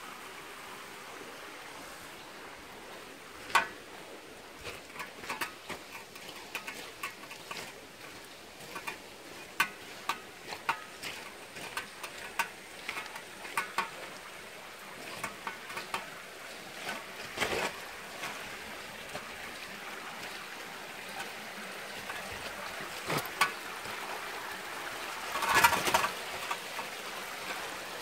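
Footsteps crunching and scuffing over mud, loose stones and broken branches, an irregular run of clicks with a louder scramble near the end, over a steady wash of running water.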